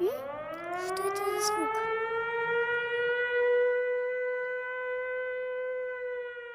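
Civil defence air-raid siren sounding a warning: its pitch winds up over the first couple of seconds, then it holds a steady wail.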